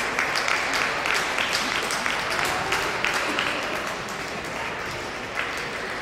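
Crowd applauding, many hands clapping at once, easing off a little about four seconds in.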